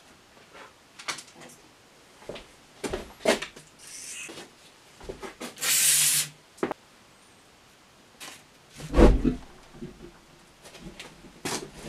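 Aerosol can spraying into a tubeless tyre for about a second, followed some seconds later by a loud low whoomp as the fuel vapour inside the tyre is ignited to blow the bead onto the rim. Light clicks and knocks of handling come between.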